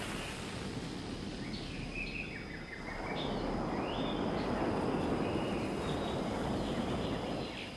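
Outdoor ambience: a steady rushing noise with a few short bird chirps about two to four seconds in.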